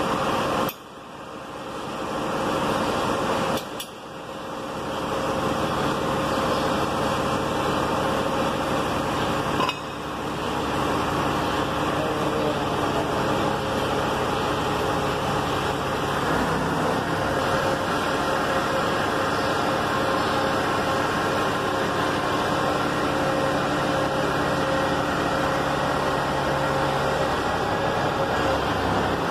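Steady mechanical hum with a faint whine from the truck-mounted hydraulic crane's power unit, the truck engine driving the hydraulic pump. Short knocks come about a second in, near four seconds and near ten seconds.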